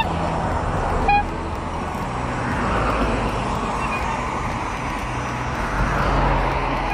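Road traffic passing in a steady rush of car and tyre noise, swelling as vehicles go by, with a brief high chirp about a second in.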